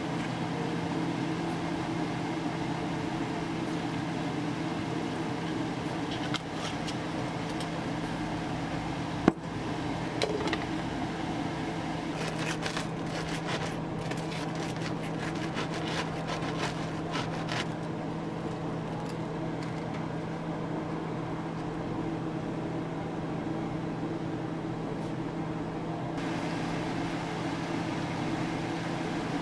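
A knife saws through crisp toasted garlic bread with a run of crunchy crackles from about twelve to seventeen seconds in, over a steady mechanical hum like a kitchen fan. There is a single sharp knock about nine seconds in.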